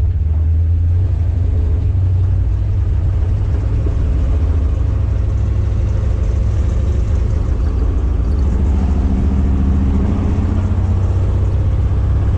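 V8 engine running steadily near idle with a deep, even rumble.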